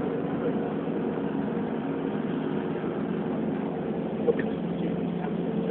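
Vehicle engine running steadily on a climb up a mountain road, a low, even hum, with a brief click about four seconds in.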